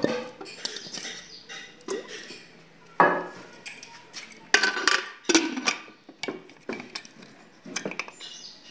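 Whole potatoes being put one by one into water in an aluminium pressure cooker: a string of irregular knocks and clinks against the metal pot, some ringing briefly. Near the end the cooker's lid is fitted on.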